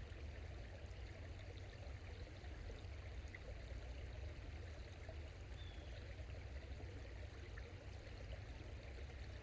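Small forest creek flowing steadily, a faint, even running-water sound.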